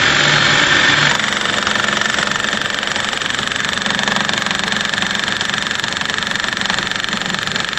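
Powered drilling into a wall: a rapid, steady hammering rattle from a heavy hammer drill or breaker, a little louder for about the first second.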